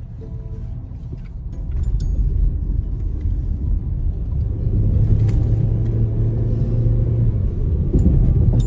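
Engine and road rumble of a moving car heard from inside the cabin, growing louder about two seconds in, with a steady low hum through the middle.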